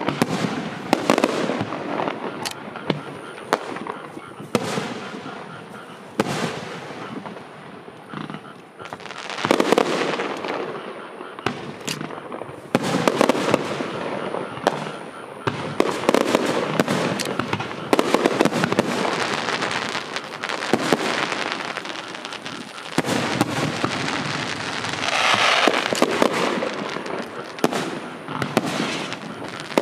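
Fireworks display: aerial shells bursting one after another, with many sharp bangs and crackling. There is a brief lull a few seconds in and a dense burst of crackling near the end.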